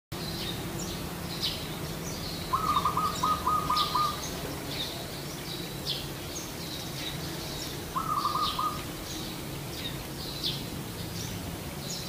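Zebra dove (perkutut) cooing: two bouts of quick, evenly repeated staccato notes, the first about 2.5 seconds in and lasting about a second and a half, the second shorter near 8 seconds. Other small birds chirp high and briefly throughout, over a steady low hum.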